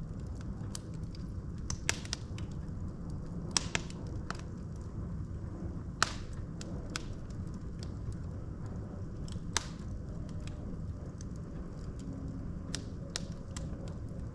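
Wood fire burning in a fireplace: a steady low rumble of flames with sharp crackles and pops from the logs, the loudest pops about two, three and a half, six and nine and a half seconds in.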